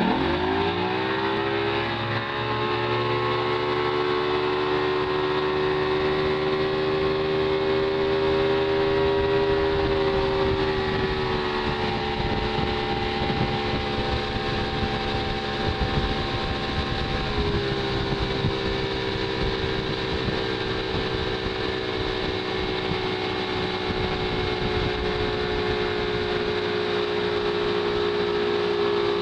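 Tow boat's engine revving up hard as the boat pulls the wakeboarder up out of the water, then running steadily at towing speed, its pitch shifting slightly twice later on. A steady rush of water runs underneath.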